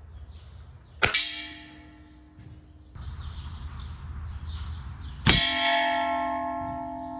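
Two .22 calibre air rifle pellets striking a metal pan. Each hit gives a sharp clang, and the pan then rings on in several tones. The second hit is louder and rings longer.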